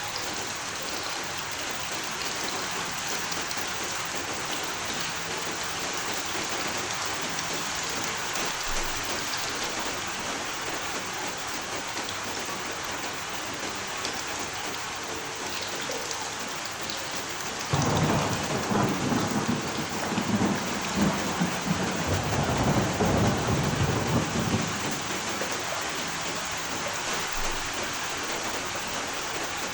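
Heavy rain falling steadily, with a long roll of thunder rumbling from about eighteen seconds in for around seven seconds before fading back under the rain.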